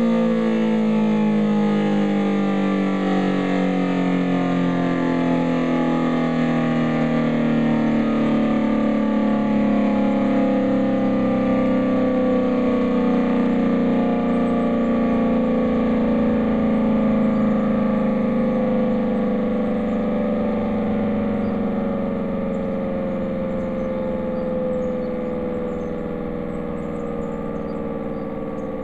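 Federal Signal SD-10 civil defense siren winding down, its tone falling slowly and steadily in pitch while growing gradually quieter.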